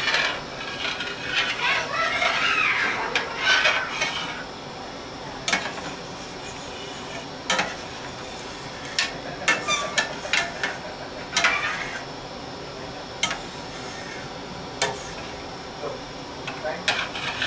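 Metal spoon stirring a thick cream sauce in a large stainless steel pan, with scattered sharp clinks and scrapes as it knocks the pan's sides and rim.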